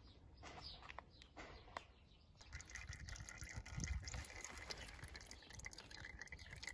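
Used gearbox-and-clutch oil draining from the drain plug of a Montesa Enduro 75H6 engine into a container: a faint trickle that sets in about two and a half seconds in, after a few faint clicks.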